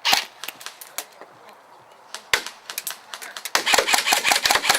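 Airsoft guns firing: a loud shot at the start and a few scattered single shots, then a rapid string of shots, about ten a second, over the last second or so.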